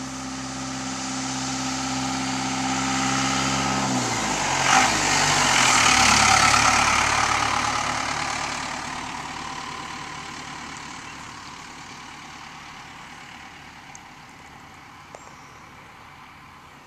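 A 4BT Cummins four-cylinder turbo diesel in a 1948 Chevy pickup, running through twin exhaust stacks as the truck drives by. It grows louder as the truck approaches, drops in pitch about four seconds in as it passes, is loudest a couple of seconds later, then fades as the truck drives away.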